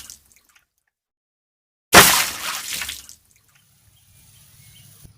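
A sudden loud splash of water about two seconds in, fading away over about a second.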